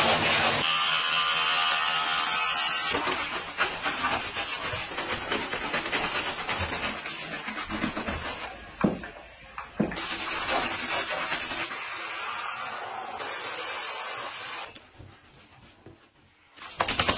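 Water spraying from a handheld shower head onto a wet dog, with a short pitched sound near the start and a couple of sharp knocks about nine and ten seconds in; it drops to a faint hush near the end.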